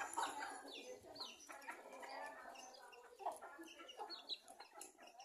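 A flock of chickens clucking and calling over one another, many short calls overlapping, several falling in pitch.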